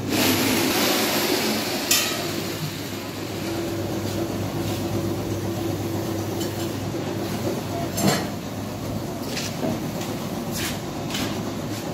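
Steady low hum with a loud hiss in the first couple of seconds, then a handful of sharp clicks and knocks scattered through, the loudest about eight seconds in.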